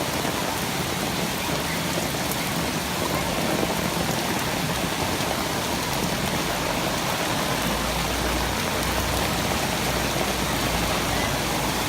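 Steady heavy rain falling, an even hiss of drops with no breaks. A low rumble joins it a little past halfway.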